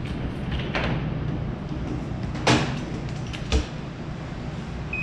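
A few sharp knocks and clatters as a washing machine control board and its power plug are handled and set down on the top-load washer's lid, over a steady low hum. Right at the end, a short high electronic beep from the washer's control board.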